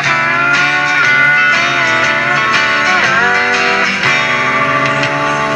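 Guitar music from an AM broadcast playing through the oval speaker of a Philco 50-920 tube radio, showing the radio receiving and playing after its IF transformer repair.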